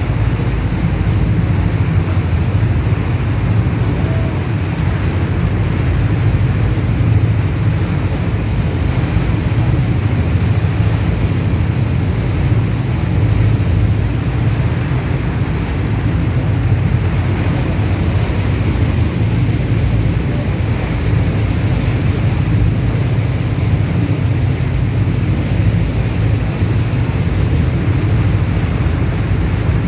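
Motor boat under way: a steady low engine drone with the churning of the propeller wake and wind buffeting the microphone.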